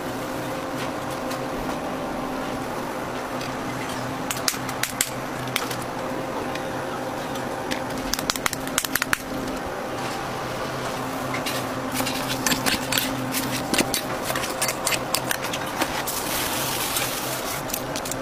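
A steady electrical hum under crackling and rustling handling noises: paper sheets and raw minced beef being worked by gloved hands into burger patties. The clicks come in short clusters, growing thick in the second half.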